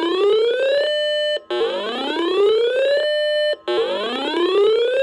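Electronic siren alert, a repeating wail. Each sweep climbs steadily in pitch, holds a steady note for about half a second, then cuts off briefly before the next one starts, about every two seconds.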